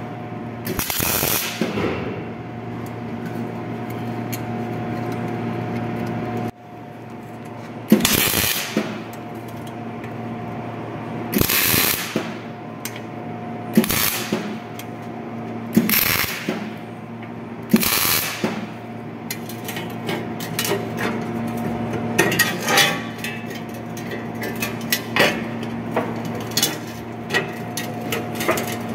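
MIG welder laying a series of short tack welds on thin carbon-steel duct sheet. Each tack is a brief crackling burst, about every two seconds, over a steady electrical hum. A longer run of rapid crackling and sharp clicks follows near the end.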